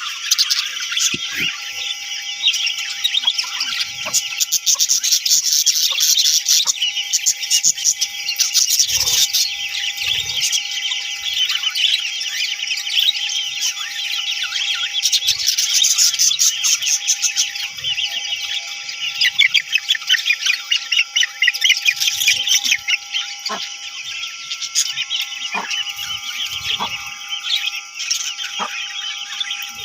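Several budgerigars chirping and chattering together in a continuous dense chorus of rapid high chirps. A faint steady hum runs underneath, and a few soft low thumps come through, about nine seconds in and again near the end.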